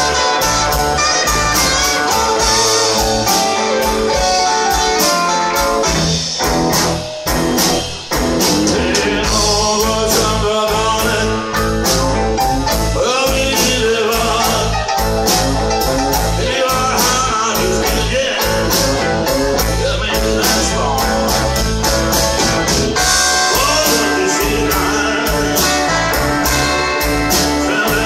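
Live blues band playing: electric guitars, stacked red keyboards and drums keeping a steady beat, with a short drop in the band about seven seconds in.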